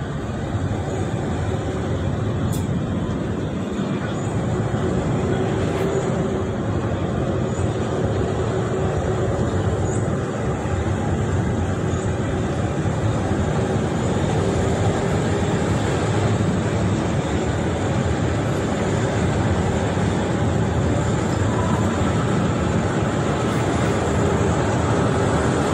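Steady running noise of a local passenger train in motion, heard from inside the carriage, with no let-up.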